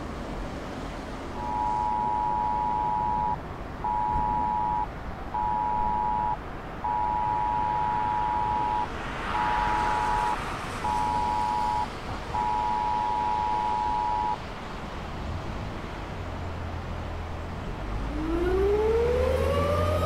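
A phone's cell-broadcast emergency alert tone: two tones sounding together in a repeating pattern of one long blast and two short ones, three long blasts in all. Near the end an E57 electric motor siren starts up, a low hum and then a tone winding up in pitch as the rotor gathers speed.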